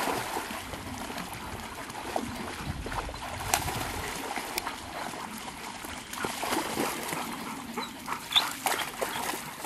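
Groenendael dogs swimming, with water splashing and sloshing around them, and a few short, high dog whines, mostly in the second half.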